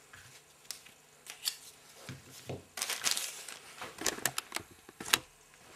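Packaging crinkling and rustling in short bursts, with a few sharp clicks, as the next puzzle is handled out of its wrapping.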